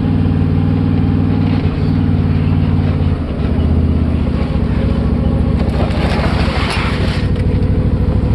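Can-Am Maverick Sport XRC's Rotax V-twin engine running steadily as the side-by-side drives along, heard from the cab; the engine note shifts about three seconds in. A brief hissing scrape comes up around six to seven seconds in.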